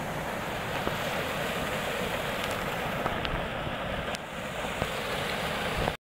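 Small waterfall pouring into a rock pool: a steady rush of falling and splashing water.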